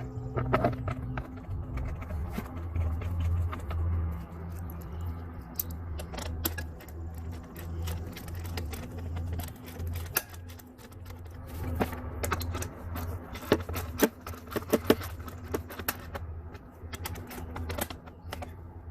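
Irregular clicks, taps and knocks of hand tools and metal mower parts while a new drive belt is fitted to a Toro Super Recycler push mower, a cluster of louder knocks about two-thirds of the way through, over a steady low hum.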